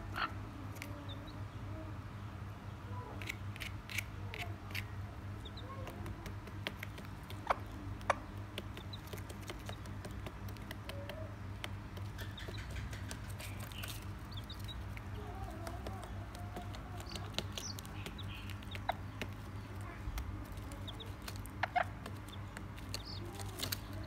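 Hen and her few-days-old chicks in a cardboard box: scattered soft peeps from the chicks and a few low clucks from the hen, with occasional short taps, over a steady low hum.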